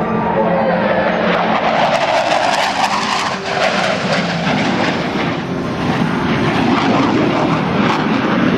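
Jet roar of four Blue Angels F/A-18 Hornets flying past low in tight formation. It grows fuller and harsher about two seconds in, with a sharp crackle at its loudest.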